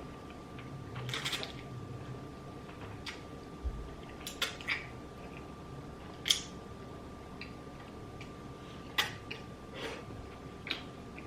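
A person eating spicy rice cakes and noodles: scattered wet mouth clicks and chewing smacks, about a dozen short sounds spread irregularly, the sharpest about six and nine seconds in.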